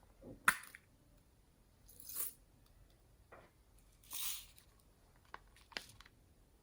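Slime being handled: a sharp pop about half a second in, then two short noisy squelching bursts around two and four seconds in, and a few small clicks near the end.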